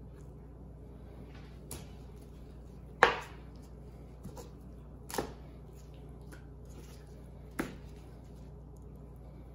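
Knife chopping through raw chicken leg quarters onto a plastic cutting board: three sharp knocks roughly two seconds apart, the first the loudest, with a fainter knock just before them.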